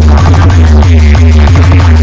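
Loud electronic dance music with a heavy bass line, played over a roadshow DJ sound system.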